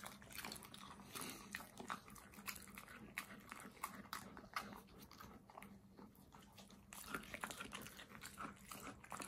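Alaskan Malamute chewing and biting through a chunk of raw meat: a run of faint, wet, crunching bites, sparser for a moment a little past the middle.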